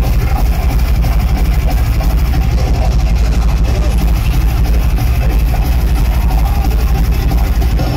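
Rapid double bass drumming from a live metal band's kit, so loud that it overloads the recording into a dense, steady low rumble that swamps the guitars and vocals.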